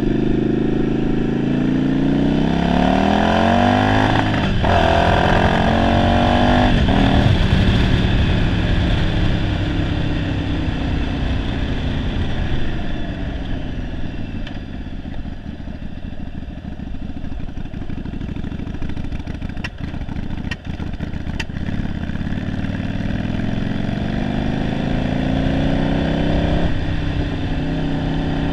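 Yamaha Virago 750's V-twin engine under way, rising in pitch as it accelerates through a gear change about four seconds in, falling off as the bike slows, then picking up again with another shift near the end. A few sharp clicks come about two-thirds through. The owner says the engine runs poorly on its single-carburettor conversion.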